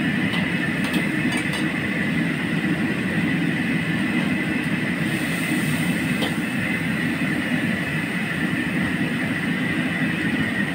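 Crabs deep-frying in a wok of hot oil: a steady bubbling rush from the boiling oil together with the gas burner running under the wok. A few light clicks come about a second in.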